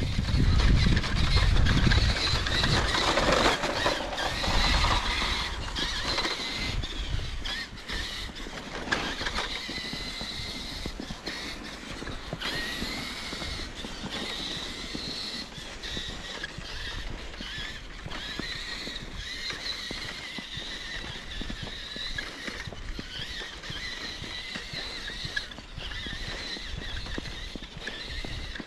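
Electric motor and gear drivetrain of a radio-controlled truck whining as it drives through snow, the pitch rising and falling with the throttle. A louder low rumble comes in over the first few seconds.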